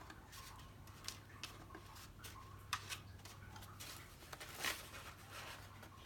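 Paper petals being handled: soft rustling and crinkling with a few sharper crackles, the loudest near three seconds in and again near five seconds, over a faint steady low hum.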